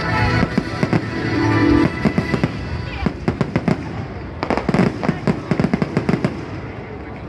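Fireworks going off, with music and its held notes in the first two seconds, then a rapid run of sharp cracks and bangs from about three seconds in that fades away near the end.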